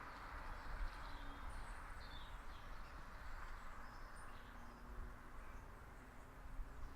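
Faint tyre and road noise of a passing car dying away into the distance, with a few faint bird chirps and a low rumble underneath.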